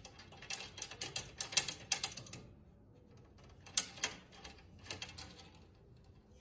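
Metal latch on a pet crate door rattling and clicking as a cat paws at it, trying to work it open. The clicks are quick and irregular, thickest for the first couple of seconds, with a few more later on.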